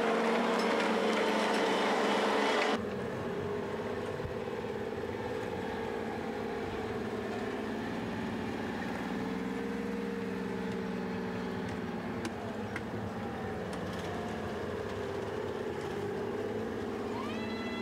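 Armoured military vehicle engines running steadily, the pitch rising and falling briefly about halfway through. The first few seconds are louder and denser and cut off abruptly at an edit.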